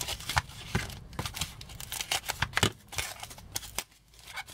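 White foam or fabric packing wrap and the plastic bag inside it rustling and crinkling as hands unwrap a parcelled toy. The sound is a run of quick, irregular crackles, easing off about four seconds in.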